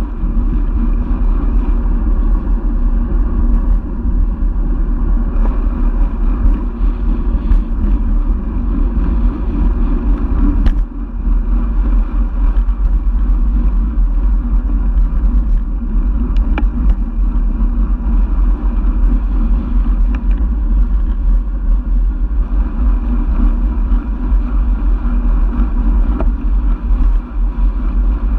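Wind buffeting the microphone of a camera on a moving road bike, mixed with the hum of the tyres on asphalt: a steady low rumble with a couple of faint ticks.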